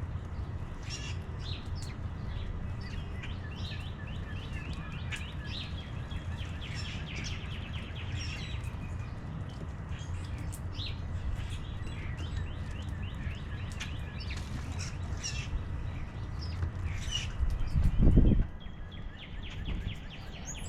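Small songbirds chirping and twittering at a feeder, with short calls and quick trills over a steady low background rumble. Near the end a loud low rumble lasts about a second.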